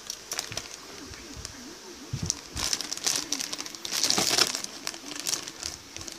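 Clear plastic bags around plastic model kit runners crinkling and crackling as they are handled, loudest in a dense stretch about three to four and a half seconds in. Pigeons coo softly in the background.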